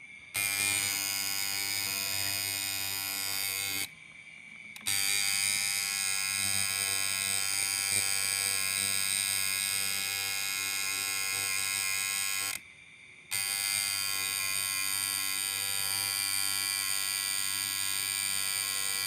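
Coil tattoo machine buzzing steadily in three runs, cutting off briefly about four seconds in and again around thirteen seconds in.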